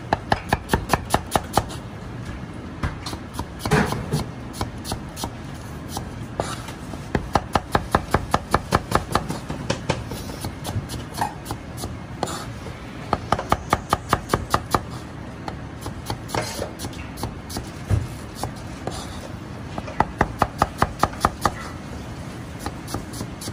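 Chinese cleaver slicing onions on a white plastic cutting board: quick runs of knocks of the blade on the board, about six a second, in bursts of a second or two separated by short pauses.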